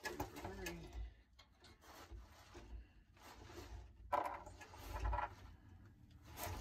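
Faint rubbing and scraping with a couple of sharp knocks, about four and five seconds in, from hands and tools working on the exhaust header collector under a pickup.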